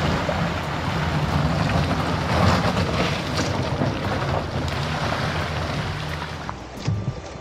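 Wind buffeting the microphone over sea water washing around a paddled folding kayak, a steady rushing noise. About six and a half seconds in it turns quieter, with a few short knocks.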